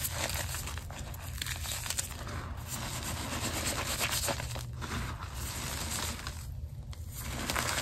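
Hands pressing, rubbing and squeezing crumbled reformed gym chalk, giving a dense, crunchy crackle of powder and small chunks breaking under the fingers, with a brief lull about two-thirds of the way through.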